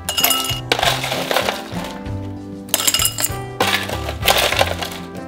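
Ice cubes clinking against a drinking glass several times as they are spooned in, over background music.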